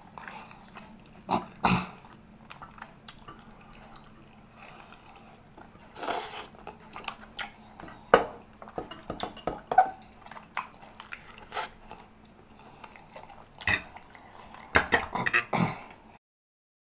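Close-miked eating of buttery rotisserie chicken: chewing and wet mouth sounds, with scattered clicks of a metal fork against a glass sauce bowl and plate. The sound drops out completely for about a second near the end.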